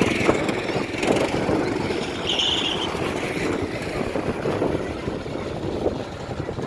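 Go-kart engines running as karts lap the track.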